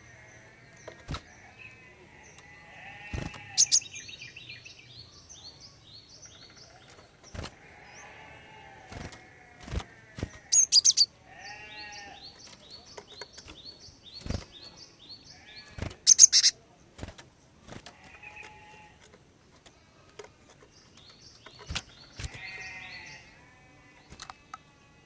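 Female cinereous tit (glatik batu) calling: runs of repeated high notes mixed with harsh chattering calls. Sharp clicks are scattered through, with two loud, shrill bursts about eleven and sixteen seconds in.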